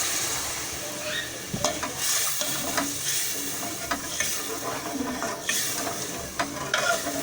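A spoon stirring potatoes and masala in a cooking pot, scraping and clicking against the pot, over the hiss of the sizzling mix with water just added to soften the potatoes.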